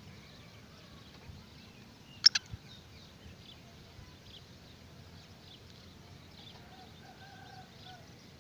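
Faint open-air background with scattered distant bird chirps. About two seconds in, a single short, sharp high-pitched note or click stands out as the loudest sound.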